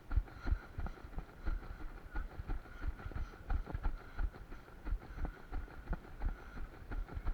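Rhythmic footfalls and jolting of a person running on foot, about two to three dull thuds a second, with a faint steady high tone underneath.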